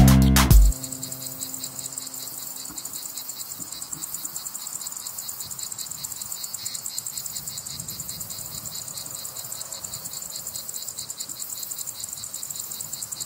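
Music cuts off within the first second, leaving a steady chorus of insects chirping with a fast, even pulse.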